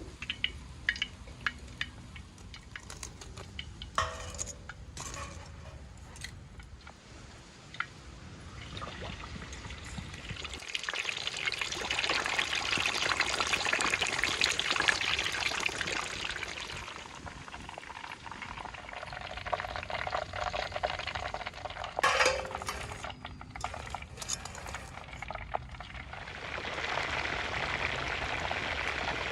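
Kitchen cooking sounds: scattered clicks and clinks of utensils and dishes, with two long stretches of a steady hiss of liquid pouring or food sizzling, one about a third of the way in and another near the end.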